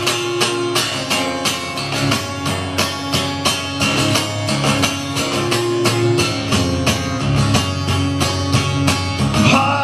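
Guitar strummed in a steady rhythm of chords, an instrumental passage of a live rock song with no singing.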